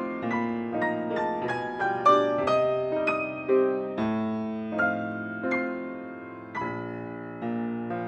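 Piano music: a melody of single struck notes, about two a second, over held lower notes.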